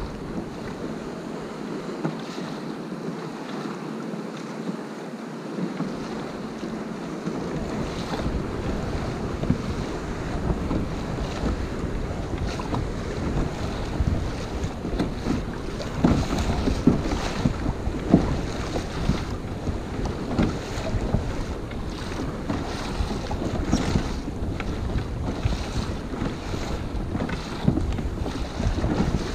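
Wind buffeting the microphone over water splashing and slapping against a kayak's hull in choppy seas, a little louder from several seconds in.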